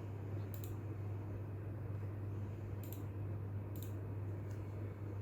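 Three sharp clicks, typical of a computer mouse button, spread over a few seconds, above a steady low hum.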